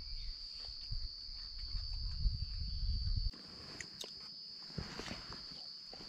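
A steady, high-pitched insect chorus drones without a break. A low rumble underneath cuts off abruptly about three seconds in, and scattered light clicks and rustles follow.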